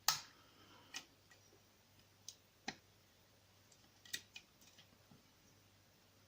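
Hook pick working the pins of a small CISA oval cylinder lock: scattered faint metallic clicks and ticks, irregularly spaced, the sharpest about a third and two thirds of the way through.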